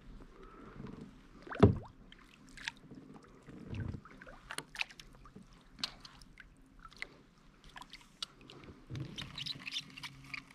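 Scattered light clicks and knocks of fishing tackle and gear handled on a plastic kayak, the loudest a sharp knock about a second and a half in, with a few softer thuds later.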